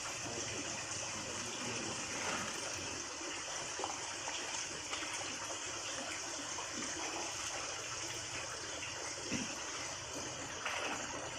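Water splashing and running as plastic baskets of fish fingerlings are dipped into and lifted out of a shallow netted holding enclosure, the water pouring off them, with small irregular splashes over a steady rush.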